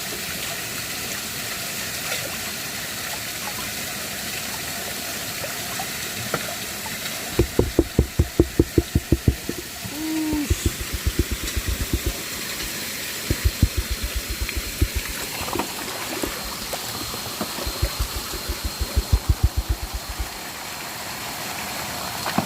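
Steady rush of running water, broken from about a third of the way in by several runs of loud, rapid low thumps, about eight a second, that start and stop repeatedly.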